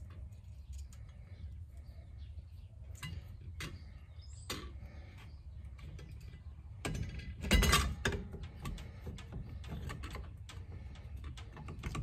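Light metal clicks and knocks of steering wheel and hub parts being handled as an aftermarket wood-rimmed steering wheel is fitted onto the steering column hub. A louder clatter of handling comes about seven to eight seconds in.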